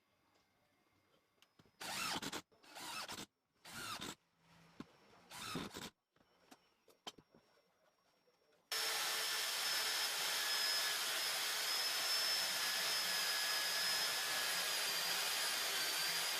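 Electric drill powering a home-made cylindrical sanding drum: four short bursts about half a second each, then a steady run of about eight seconds with a high whine, cut off abruptly.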